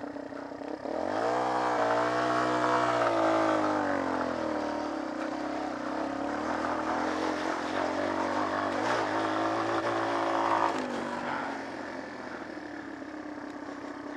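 Small trail motorcycle engine revving up about a second in and running hard, its pitch rising and falling, then easing back to a lower steady note near the end.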